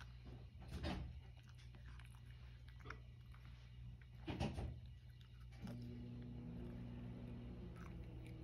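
Cat crunching dry kibble, with a few soft knocks as it leaves the tray, the loudest about halfway through. About two-thirds of the way in, a steady low hum starts and holds.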